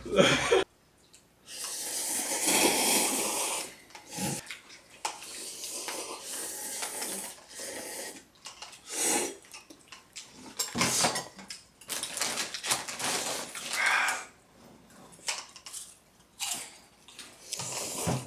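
Liquid pouring and splashing in uneven stretches, with a few short clinks.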